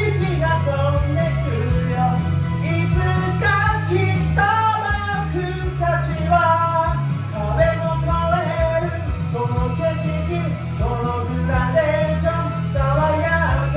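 A man singing a Japanese rock song over a full band backing, with strong bass and drums underneath the melody.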